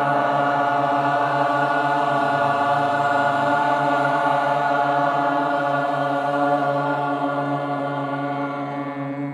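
A man's voice chants one long, held tone over a steady drone from a small drone box. The voice tapers off near the end, leaving the drone.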